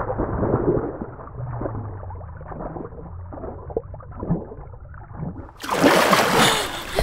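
Muffled underwater water sounds, bubbling and gurgling with the high end cut away, as a swimmer moves below the surface. About five and a half seconds in the sound suddenly opens up into a loud splash and sloshing of water as he breaks the surface.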